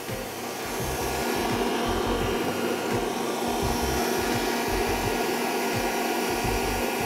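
Electric mixer running steadily, beating eggs and sugar for a chocolate sponge batter; it comes up to speed within the first second.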